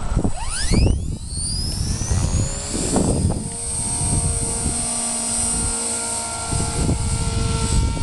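Walkera V450 electric RC helicopter spooling up: the motor and rotor whine rises steeply over the first couple of seconds, then holds steady as the helicopter lifts off and flies. Wind buffets the microphone with low rumbling gusts.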